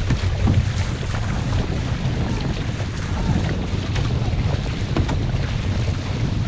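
Wind buffeting the microphone over the steady wash of water along an outrigger racing canoe's hull, with faint splashes of paddle strokes.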